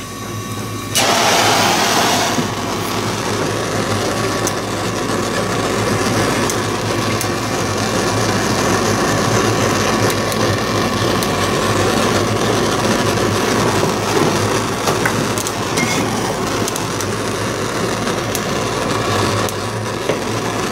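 Handheld heat gun switched on about a second in and blowing steadily, its fan motor running, as it heats heat-shrink tubing over soldered wire joints.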